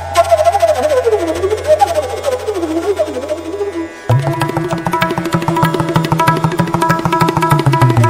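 Indian-style background music: a wavering, gliding melody line over a steady drone, with a regular hand-drum rhythm coming in about halfway.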